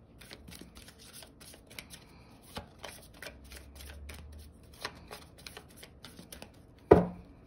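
A deck of reading cards being shuffled by hand: many small, quick snaps and flicks of card against card. A single sharp knock near the end.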